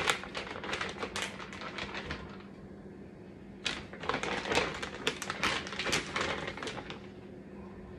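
Plastic bag of beef fajita strips crinkling and crackling as it is handled and shaken out over the pan, in two spells of rapid irregular crackles with a short pause between.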